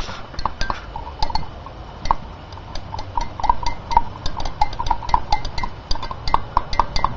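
Metal rod stirring liquid in a glass mason jar, clinking against the glass in quick, irregular taps several times a second: mixing a fresh batch of copper sulfate and muriatic acid solution.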